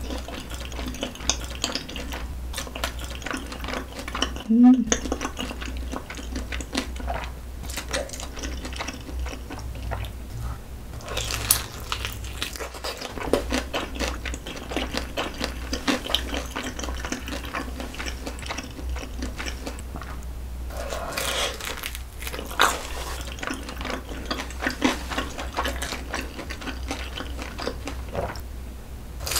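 Close-miked eating sounds: wet chewing and lip smacks of spicy rose braised chicken with soft noodles, with chopsticks clicking now and then. A louder smack stands out about four and a half seconds in.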